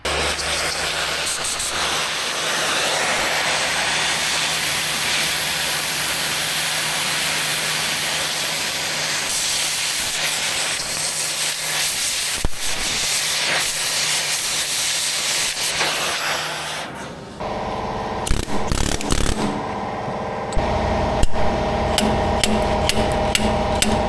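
Angle grinder cutting through a trencher-chain rivet: a steady motor hum under a loud, even grinding hiss, which stops after about 17 seconds. An engine is running in the last few seconds, with clicking.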